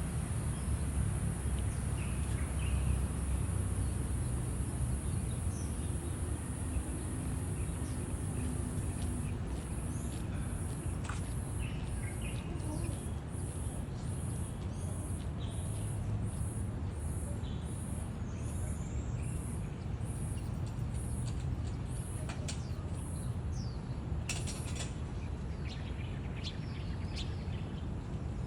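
Outdoor ambience with a steady low rumble and scattered faint bird chirps. About a third of the way in, a very high, even pulsing starts at about two pulses a second and stops a few seconds before the end.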